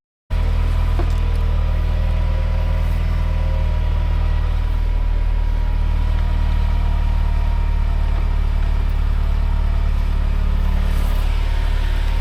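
UAZ off-road vehicle's engine running at a steady pitch: a loud, even low drone that cuts in suddenly just after the start.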